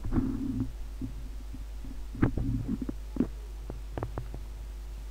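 Steady low electrical hum on the microphone, with a few faint short clicks and murmurs about two to four seconds in.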